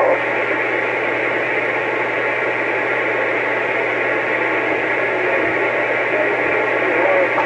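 CB radio receiver hissing with steady static from its speaker, no station talking, with a low hum underneath.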